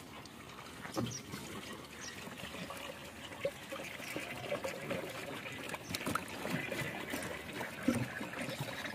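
Water pouring and trickling from a plastic jerry can into the water tank of an evaporative air cooler, with a few knocks.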